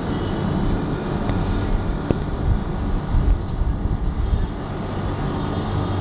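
Steady low rumble with a faint hum from an Alstom Citadis light-rail tram running down the street, mixed with street noise. A single sharp click about two seconds in.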